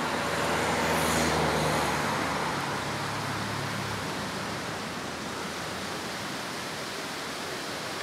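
A vehicle's engine running with a steady rushing road or wind noise. The engine's low hum fades after about four seconds, leaving the even rush.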